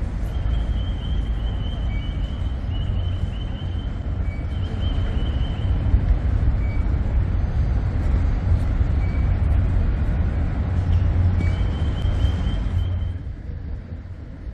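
Low rumble of city traffic, easing off near the end, with thin wavering high tones coming and going and a short high chirp every couple of seconds on top.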